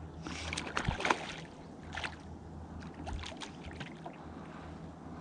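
Faint flowing river water with scattered light clicks from a fly reel's click-pawl drag while a hooked trout is played.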